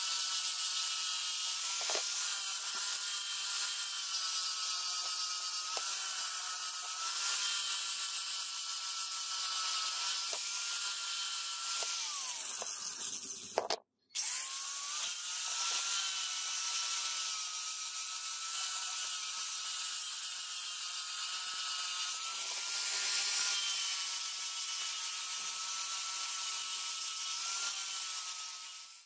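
Electric angle grinder with an abrasive disc grinding rust off a steel hatchet head: a steady high whine with a harsh hiss, the pitch wavering as the disc is pressed against the metal. About halfway through it slows, cuts out briefly, then spins back up and carries on grinding.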